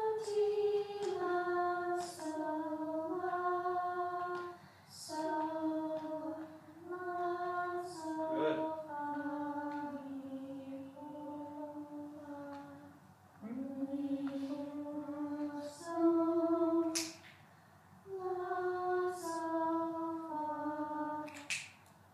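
Junior-high choir singing a slow sight-reading exercise in unison on solfege syllables, holding each note and stepping up and down in pitch. There are short breaks at the rests, with a few finger snaps in the pauses.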